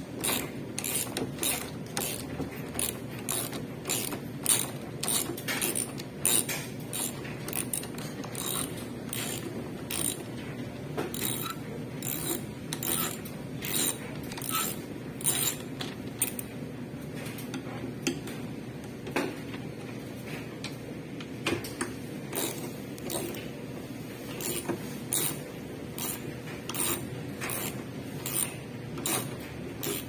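Hand work on a front-loading washing machine's parts during a bearing change: irregular sharp mechanical clicks, about two or three a second, over a low steady hum.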